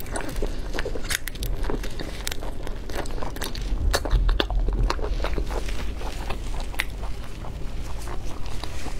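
Close-miked eating: wet chewing, sucking and lip smacks on a piece of saucy food, a run of small clicks and crackles, with a few dull low thuds about four seconds in.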